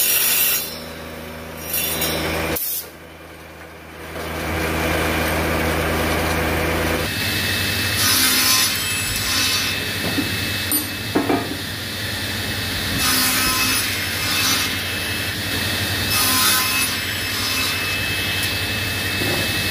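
A woodworking machine motor hums steadily, then a sliding table saw runs with a steady whine and crosscuts a hardwood beam several times, each cut a louder rasping passage over the blade's spin.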